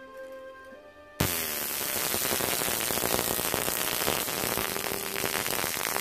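Homemade butane flamethrower firing: about a second in, the fuel valve opens and a loud, steady hiss of gas jetting out and burning starts suddenly and keeps going. Background music plays underneath.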